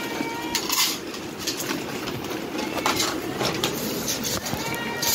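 Cats meowing at feeding time, with one drawn-out meow that rises and falls near the end, over a steady background hum and a few sharp clinks.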